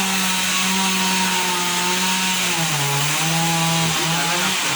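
Chainsaw running at high revs while cutting a tree. Its engine note dips about halfway through and again near the end, as the cut takes load, then climbs back.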